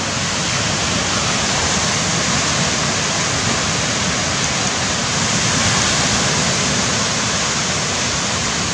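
Surf from small waves breaking on a sandy beach, a steady even rushing with no separate crashes, swelling slightly about six seconds in.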